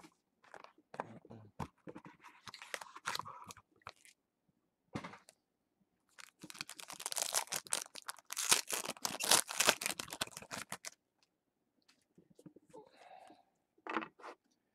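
A sealed box of 2016 Panini Infinity football cards being opened by hand: scattered clicks and cardboard rustles, a sharp crack about five seconds in, then several seconds of dense crinkling and tearing of the packaging, the loudest part, before it trails off into faint handling.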